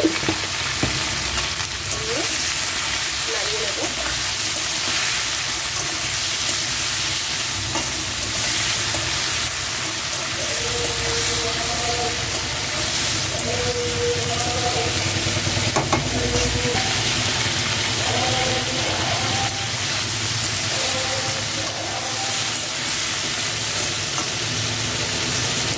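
Chopped vegetables frying in hot oil in a metal kadai, giving a steady sizzle, with a metal spatula now and then stirring them and scraping the pan.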